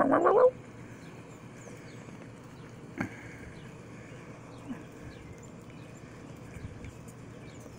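A small dog whimpering, a high pitched cry that stops about half a second in. After it there is only a single tap about three seconds in and faint bird chirps.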